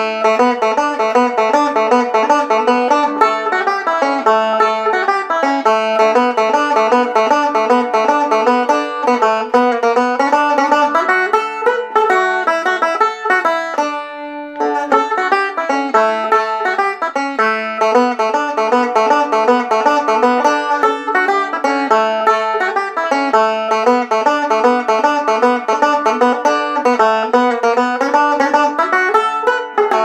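Solo five-string banjo (a Deering Eagle II) played in a quick run of picked notes for an old-time tune, with a brief pause about halfway through.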